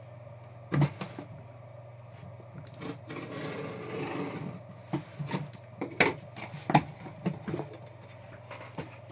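Objects handled on a tabletop: scattered light knocks and clicks, with a stretch of rubbing and rustling about three seconds in, over a steady low hum.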